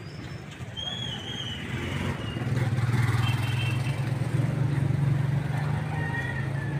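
A motor vehicle's engine runs with a low drone that grows louder from about two seconds in and eases off near the end, as it passes by. Small birds chirp faintly.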